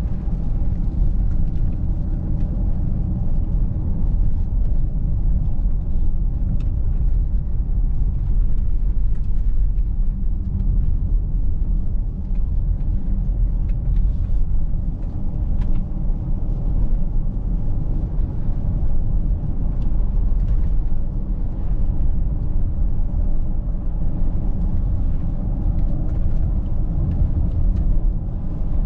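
A Mercedes-Benz GLC Coupé 300de 4Matic on the move, with a steady low driving rumble of tyres and road.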